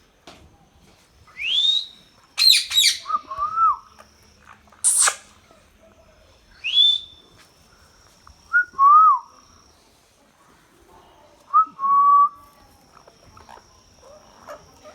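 Indian ringneck parrot calling in short separate bouts: rising whistled notes, a quick cluster of sharp calls about two and a half seconds in, and one loud shrill call about five seconds in. Lower slurred whistles come between them, with a faint steady high tone in the background.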